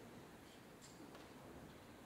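Near silence: the room tone of a large hall, with a few faint clicks.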